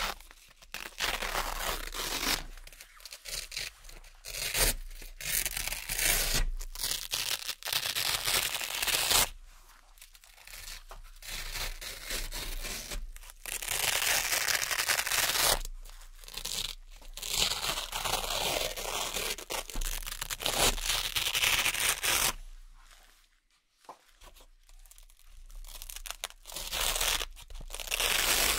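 Hook-and-loop (Velcro) circle patches being peeled off a hook-and-loop board one after another: a string of crackly ripping tears, some short and some drawn out over a second or two, with brief pauses between them and a longer lull about three quarters of the way through.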